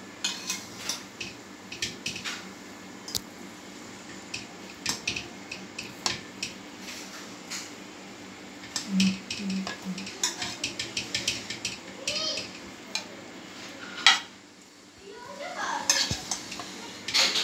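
Metal serving spoon clinking and scraping against a pot and a ceramic plate as rice is dished out: a run of short, irregular clicks, with one louder clank about fourteen seconds in.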